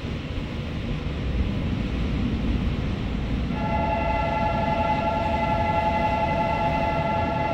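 Seoul Subway Line 9 train running into the station with a steady low rumble. About halfway in, a long steady horn made of several high tones sets in and holds.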